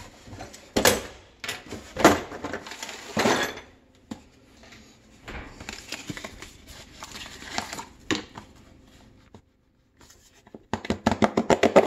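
Hands handling tool packaging: knocks and rustling as a cardboard box is opened and its contents pulled about, with a brief pause and then a quick run of sharp clicks near the end.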